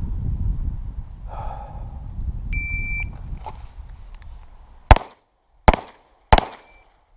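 Shot timer's start beep, one steady high tone lasting about half a second, followed about two seconds later by three pistol shots in quick succession, each under a second apart.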